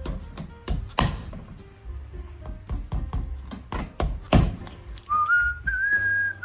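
A cobbler's hammer tapping a rubber Dainite sole onto a shoe in a run of sharp knocks, the hardest blows about a second in and just past the middle. A high whistled note rises slightly near the end.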